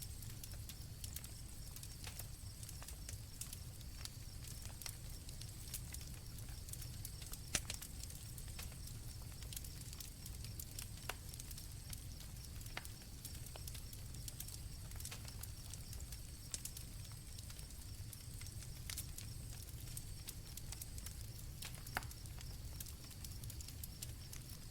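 Night campfire crackling, with sharp pops scattered throughout and a few louder ones, over a low steady background, while crickets chirp steadily.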